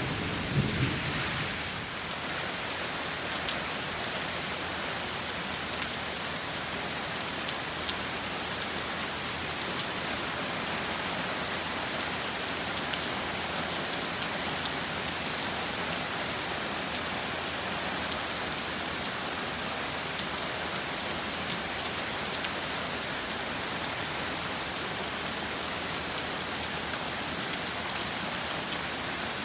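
Steady rain falling, with the tail of a thunder rumble dying away in the first two seconds.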